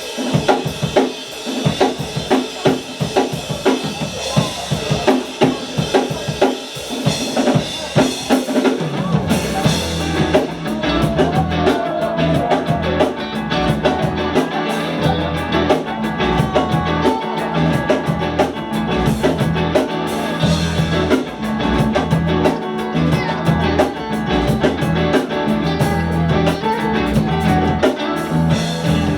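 A band playing: drum kit alone with snare, rimshot and bass drum for about the first nine seconds, then bass and the other instruments come in for the full band.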